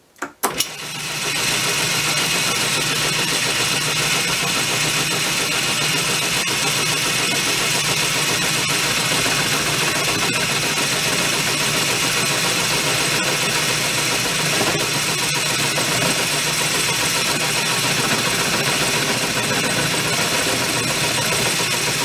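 Atlas 618 (Craftsman 101) six-inch lathe switched on with a click, its motor and belt drive running up within about a second. It then runs steadily with the spindle turning an end mill in the milling attachment at roughly 1,000 RPM, and stops abruptly at the end.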